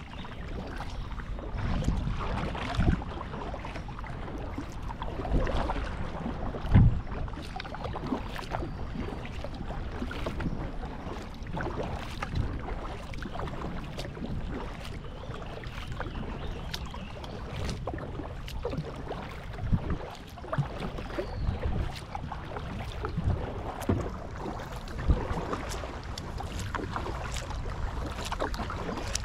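Kayak paddling on a river: paddle blades dipping and splashing, water dripping and trickling, and now and then a louder knock, over a steady rush of wind on the microphone.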